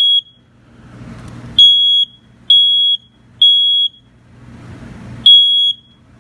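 Household smoke detector sounding its alarm under test in the code-3 (temporal-three) pattern: loud, high-pitched beeps about half a second long, three in a row, then a pause of about a second and a half before the next group starts.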